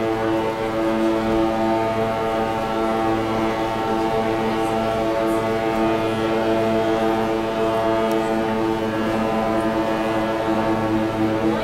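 Cruise ship Carnival Dream's horn sounding one long, steady blast at an unchanging pitch, a warning to small boats crossing the ship's path.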